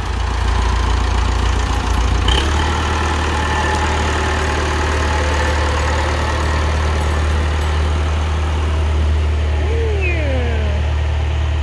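Massey Ferguson tractor engine running steadily at idle, its note shifting once about two seconds in. It is run to circulate fresh oil through the power steering system and flush it out.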